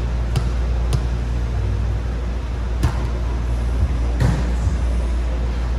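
Steady low mechanical hum filling a sports hall, broken by four short, sharp smacks or knocks.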